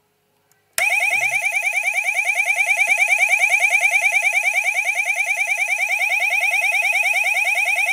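Fire alarm sounder, set off by a light switch wired in place of a manual call point. It starts suddenly just under a second in with a loud, fast-warbling electronic tone that keeps going steadily.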